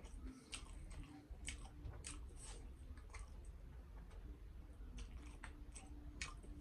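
Close-up chewing of a mouthful of rice and pork leg eaten by hand, with irregular mouth clicks and smacks about one or two a second.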